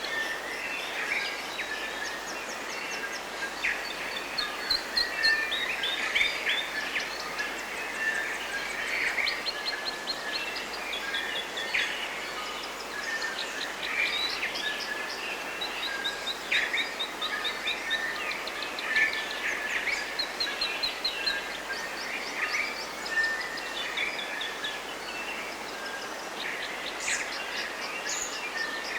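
Several birds chirping and singing in quick, overlapping calls and short trills over a steady hiss of background noise.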